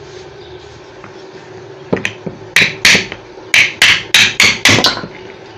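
Hammer striking a pedestal fan motor's shaft to knock its ball bearing off. About ten sharp metal-on-metal blows in quick succession start about two seconds in.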